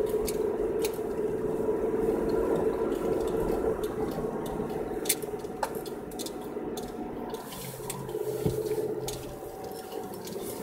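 Car driving over a fresh layer of snow, heard inside the cabin: a steady hum with the rough hiss of the tyres pressing through the snow, and scattered sharp clicks and crackles.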